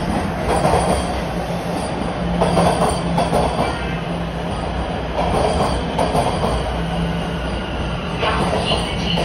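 TTC Toronto Rocket subway train arriving along the platform, with a steady low rumble and motor hum and repeated wheel clatter over the track. A thin wheel squeal comes in near the end.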